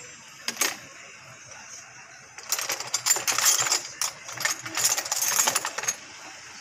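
Quick metallic clicks and rattling, as of small metal parts or tools being handled, starting about two and a half seconds in and lasting about three and a half seconds; a couple of single clicks come just before.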